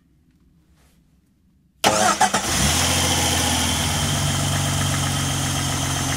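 Near silence for almost two seconds, then the 2002 Jeep Grand Cherokee's engine is started: a brief crank, it catches, and it settles into a steady idle.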